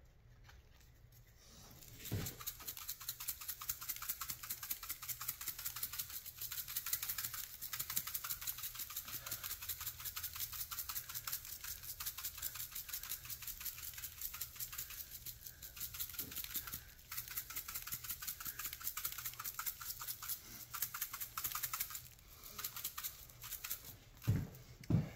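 Pepper and garlic salt being dispensed from a spice container over steaks: a fast, even rasping rattle that runs for about twenty seconds with a short lull in the middle, framed by a knock at the start and a couple of knocks near the end.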